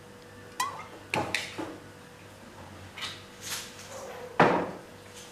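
Cooking oil poured from a glass bottle onto seasoned raw chicken in a plastic bowl, with a handful of separate knocks and clinks as the bottle and bowl are handled; the sharpest knock comes about four and a half seconds in.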